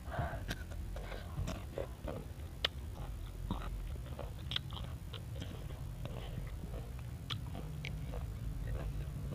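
Close-up crunching and chewing of crisp unripe green mango: irregular sharp crunches and wet mouth sounds over a steady low rumble.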